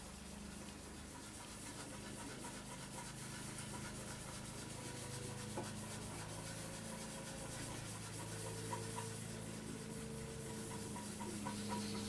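A cloth rubbing back and forth over the ABS plastic casing of a GPO 746 telephone, smoothing its surface.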